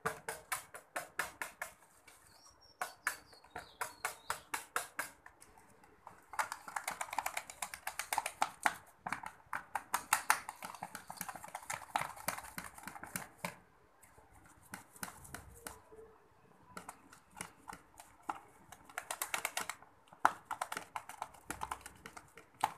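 A hand beater tapping and scraping against a plastic tub as clotted milk cream is mashed smooth for butter. It goes in quick, even clicks, about five a second, with thicker runs of beating after about six seconds and again near the end, and a short lull in between.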